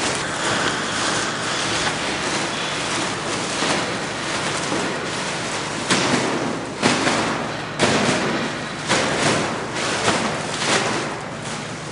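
A large sheet of paper being handled and crumpled: continuous rustling and crackling, with a run of sharper crackles and thumps from about halfway through.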